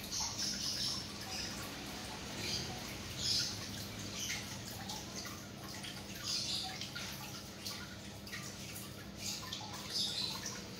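Water dripping and trickling in small irregular splashes, over a low steady hum.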